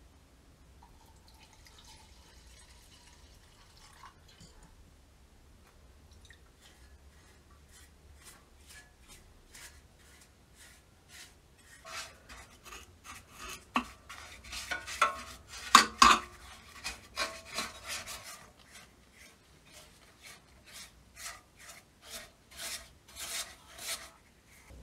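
Quick repeated strokes of hand work on a metal part, about two a second, starting faint and loudest about halfway through.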